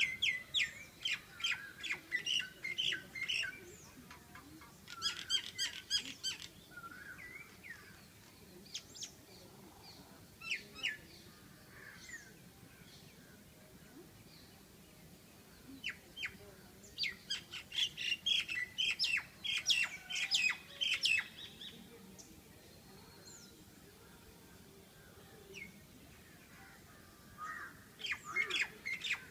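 Birds calling in bursts of rapid, high chirps and squawks, each burst lasting a few seconds, with quieter gaps between.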